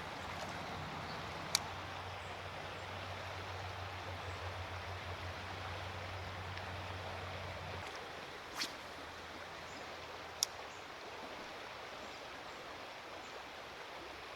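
Creek water running steadily over shallow riffles, a soft even rush, with three short sharp clicks at about one and a half, eight and a half and ten and a half seconds.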